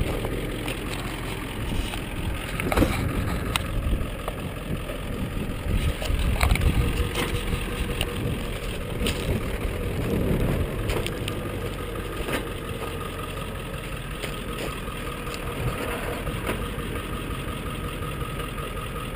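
Dually pickup truck engine idling steadily, with scattered sharp knocks and bumps close by.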